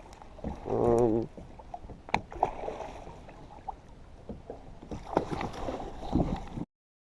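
Scattered light knocks and clicks of gear being handled in a kayak, with a brief voice about a second in. The sound cuts off abruptly near the end.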